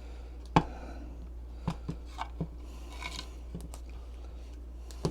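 Scattered light clicks and knocks of small parts being handled on a workbench, the loudest about half a second in, with a brief soft rustle around the middle, over a steady low hum.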